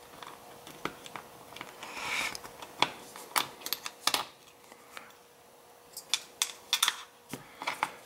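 Sharp little metal clicks and a brief scrape as a screwdriver works at the C-clip on the back of a Sargent brass lock cylinder's plug, prying it off. The clicks come irregularly, in a cluster around the middle and again near the end.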